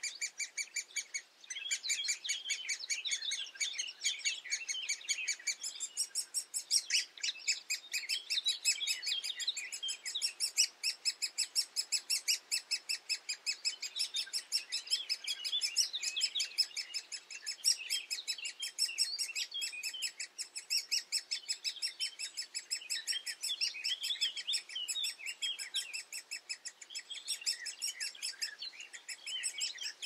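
Great spotted woodpecker nestlings begging for food from the nest hole: a continuous stream of rapid, high-pitched chirps, many a second, with a short break about a second and a half in.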